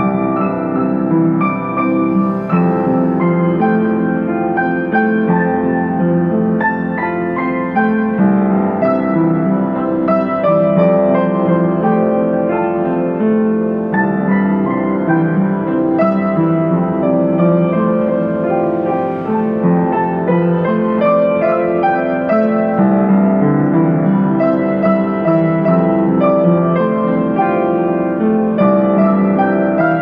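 Piano music with held notes that overlap as they ring on, played at a steady level.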